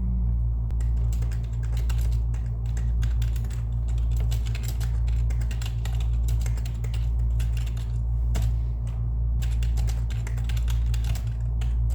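Typing on a computer keyboard, rapid irregular key clicks with short pauses, over a steady low hum.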